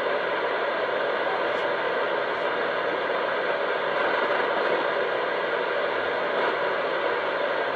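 Steady hiss of static from a CB radio receiver's speaker with no signal coming through, while a test transmission is awaited.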